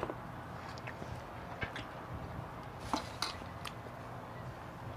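A few light, sharp clicks of a metal spoon against a ceramic bowl while eating, over a steady low hum.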